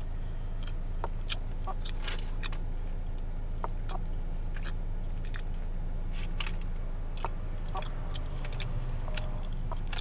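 A person chewing a cookie close to the microphone, with scattered short crunches and mouth clicks, over a steady low hum inside a car.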